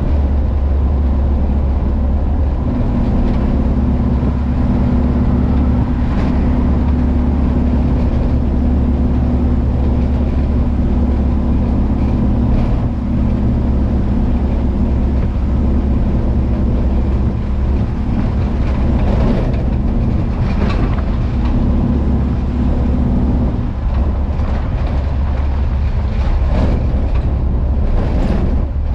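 Volkswagen Kombi van's engine running steadily under way, a constant low drone over road noise. The engine note shifts about three-quarters of the way through, and there are a few short knocks.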